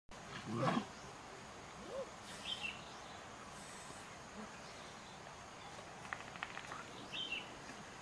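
A short, loud rising animal cry just after the start, then a softer call that rises and falls about two seconds in. Brief high chirps about two and a half seconds in and again near the end, and a quick run of rustling clicks about six seconds in, over a faint outdoor background.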